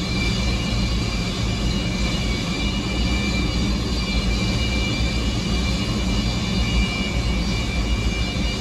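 Antonov An-124's four D-18T turbofan engines running at low power as it taxis in: a steady low rumble with a high, steady whine over it.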